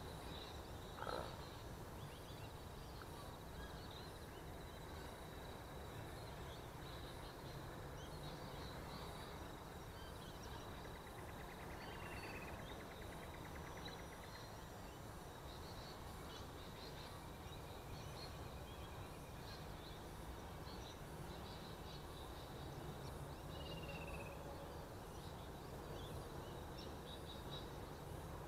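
Faint outdoor ambience: steady low background noise with scattered faint bird chirps. Two short falling calls stand out, about twelve and twenty-four seconds in.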